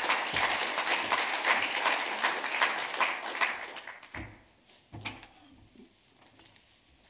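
Audience applauding, a dense patter of clapping that dies away about four seconds in, followed by a couple of soft knocks.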